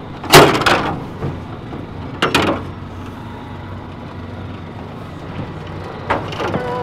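A boat's engine running steadily, a low drone, with two loud bursts of noise, about half a second in and about two seconds in. Music starts near the end.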